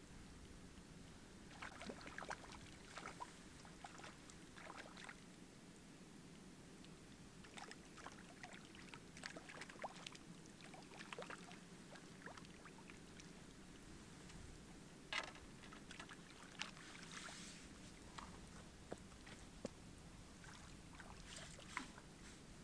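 Faint, scattered splashes and clicks at the water's edge as a small hooked fish is played on a tenkara rod and brought into a landing net in shallow water.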